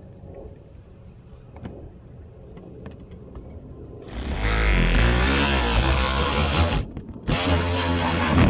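Milwaukee Hackzall one-handed reciprocating saw, fitted with a windshield cut-out blade, starting about four seconds in and running loudly as it cuts the windshield out. It stops for about half a second just before seven seconds, then starts again. A few faint clicks come before it starts.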